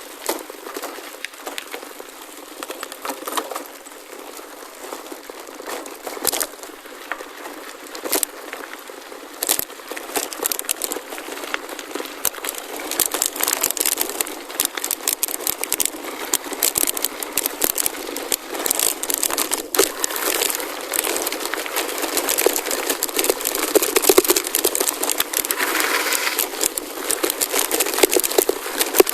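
Gravel bike tyres rolling over a loose gravel forest road: a dense crackle of small stones with rattling clicks, getting louder about ten seconds in.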